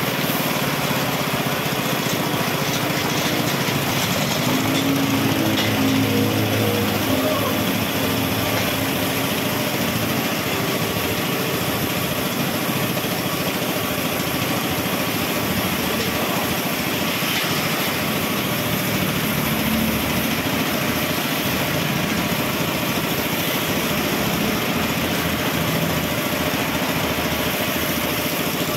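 Homemade carpet spin-dryer made from a recycled plastic drum, its motor running and spinning the drum: a steady mechanical whirring hum, with a few humming tones that waver in pitch about five seconds in.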